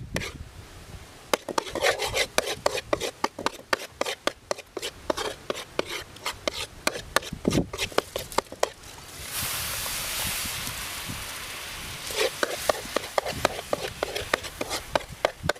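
A utensil scraping and stirring rapidly around a steel wok of dark brown sauce as water is added, in quick irregular strokes. About nine seconds in, the strokes give way to a steady sizzling hiss for roughly three seconds, then the scraping starts again.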